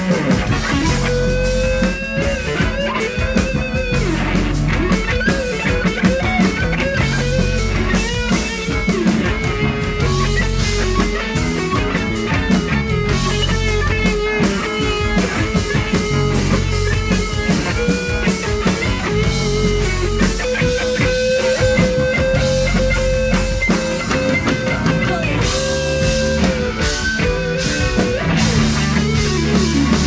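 Electric guitar solo in a live funk band, the lead line full of bent and sliding notes over bass guitar, keyboard and a drum-kit groove. About two-thirds of the way through, the guitar holds one long note for several seconds.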